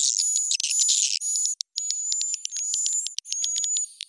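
Swiftlet lure call, a recording of edible-nest swiftlet chirps with the pitch and tempo raised, of the kind played to draw swiftlets into a bird house. It is a fast run of high clicks over a thin whistle-like tone, repeated in short phrases of about half a second with brief gaps.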